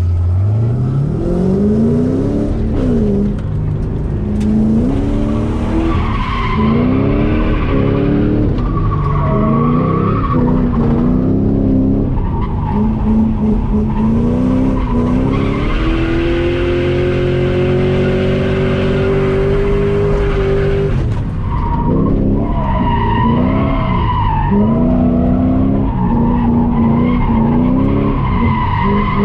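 Stock S197 Ford Mustang GT's 4.6-litre three-valve V8 revving up and down through a drift run, heard from inside the cabin, with the tyres squealing. The revs climb from the start, rise and fall again and again, and hold high for several seconds in the middle before dropping.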